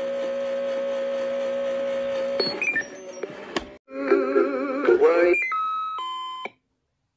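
Circuit-bent Big Mouth Billy Bass singing-fish toy glitching out electronic synth tones: a steady held tone for about two and a half seconds, then breaking up into warbling, wavering tones and a stair-step run of beeps that cuts off suddenly near the end.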